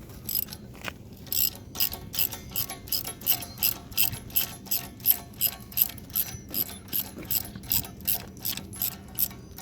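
Ratchet wrench worked in short strokes, its pawl clicking about three times a second, starting about a second in.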